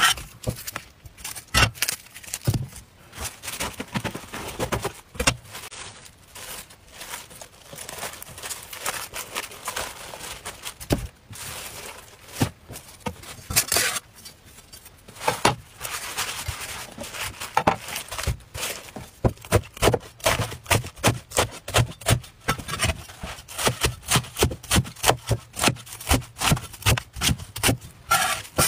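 Chinese cleaver cutting napa cabbage on a wooden chopping board: irregular crisp cuts and scrapes through the leaves, then from about two-thirds of the way in a quick, regular run of chops, two or three strikes a second against the board.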